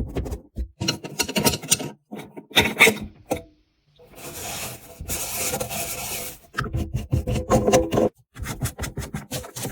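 Repeated scraping and rubbing with quick knocks, and a steady hiss for a couple of seconds in the middle.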